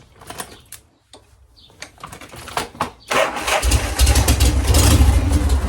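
A few faint clicks, then a 1981 Harley-Davidson Shovelhead V-twin fires up about three seconds in and keeps running loud and lumpy. It starts and runs with its ignition fault cured by the newly fitted key switch.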